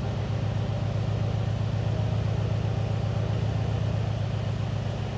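Mercedes-AMG C63 Estate's 4.0-litre twin-turbo V8 idling steadily through its quad exhaust, a low even note.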